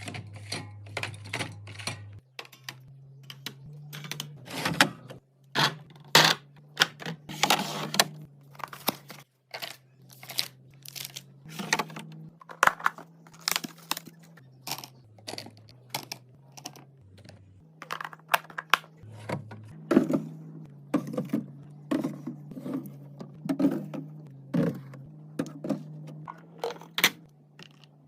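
Household items and packaging being handled and set down while restocking: a run of irregular clicks, taps and light knocks, with stretches of crinkling and rustling.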